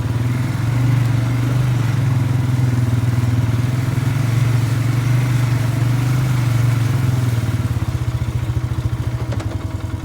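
Polaris Sportsman 570 ATV engine running steadily while riding, then dropping to an even, pulsing idle about three-quarters of the way through.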